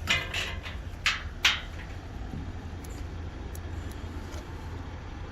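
A few sharp clicks and scrapes of test-lead probes being worked into a wiring-harness connector, four of them in the first second and a half, over a steady low rumble.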